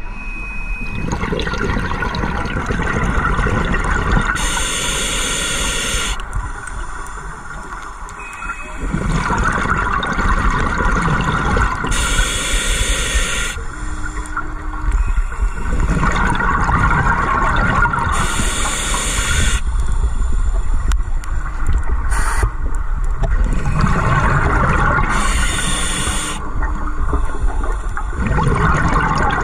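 Scuba diver breathing through a regulator, heard underwater: a hissing inhalation followed by a rush of rumbling, gurgling exhaled bubbles, repeated about four times, roughly one breath every six to seven seconds.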